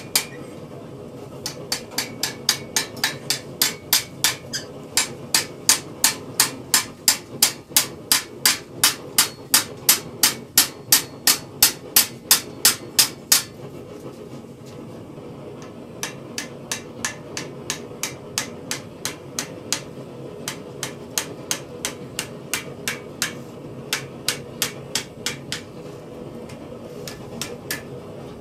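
A blacksmith's hammer strikes a steel acanthus leaf over a stake in repoussé work. A fast, even run of sharp blows, about three a second, stops about 13 seconds in. After a short pause, lighter and less regular blows resume.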